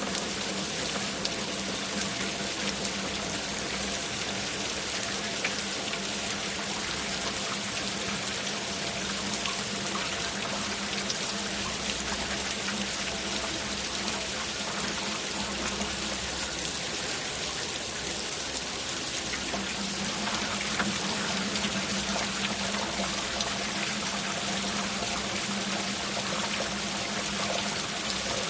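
Steady rain falling, a dense hiss of water with many small drop ticks through it. A low steady hum sits underneath and drops out for a few seconds just past the middle.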